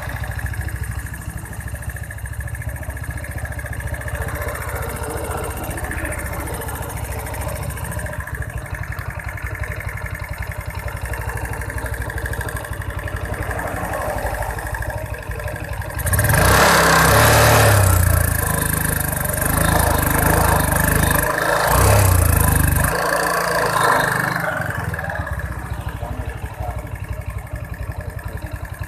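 Yamaha Mio scooter engine idling steadily. Past the halfway point it is revved three times over about eight seconds, then settles back to idle. The revs test a carburettor that makes the engine bog and feel weak.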